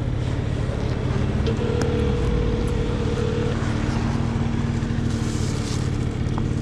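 Motor scooter engine idling steadily, with a phone's ringback tone on speakerphone sounding once for about two seconds, starting about a second and a half in: the call to the customer ringing out.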